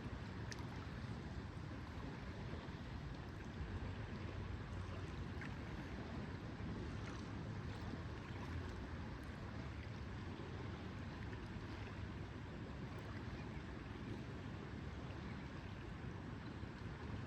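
Lakeside ambience: a steady low wash of lake water and wind, with a few faint ticks.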